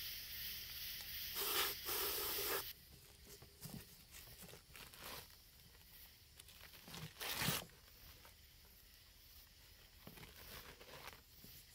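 An aerosol spray can of rubberized undercoating paint hissing in short bursts for the first couple of seconds, then newspaper masking rustling and tearing as it is pulled off a turtle shell, with one louder rip a little after seven seconds.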